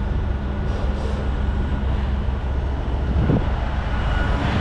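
Diesel engine of a Grove GMK 6450 all-terrain crane running steadily, a low even rumble with a faint hum.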